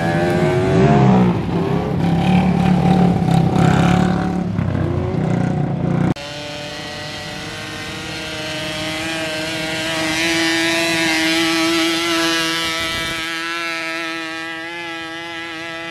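Quad bike engines revving, the pitch rising and falling. After a sudden cut about six seconds in, a single engine holds a high steady note that climbs slowly and then eases off, quieter than before.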